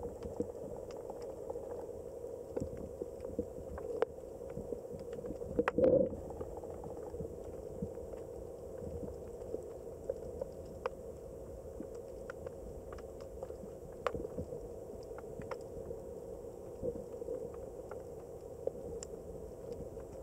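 Underwater ambience in the sea: a steady wash of noise with scattered sharp clicks, and a brief louder rumble just before six seconds in.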